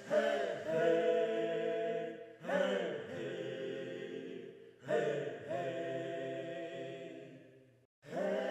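Background music of a choir singing a cappella in long held chords, each new phrase coming in about every two and a half seconds, with a brief break just before the end.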